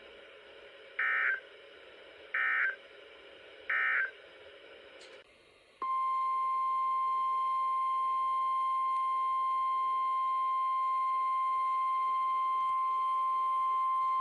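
Emergency Alert System audio: three short, identical bursts of SAME digital data warble about a second and a half apart, the end-of-message code closing the previous warning. About six seconds in, a steady, loud single-pitch tone begins; this is the 1050 Hz NOAA Weather Radio warning alarm tone that opens the next alert.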